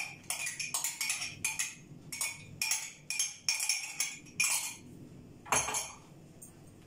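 Small metal cup clinking against a stainless steel mixing bowl and utensil as yeast is tapped out into the flour: a run of quick clinks, two or three a second, then one louder knock about five and a half seconds in.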